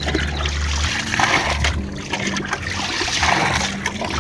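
Shallow water splashing and trickling in irregular bursts as fish trapped in a net are gathered by hand.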